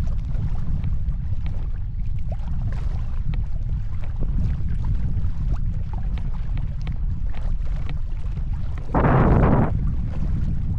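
Strong wind buffeting the microphone as a low rumble while a folding canoe is paddled, with small splashes and drips from the paddle and water. About nine seconds in, a louder rush of noise lasting under a second.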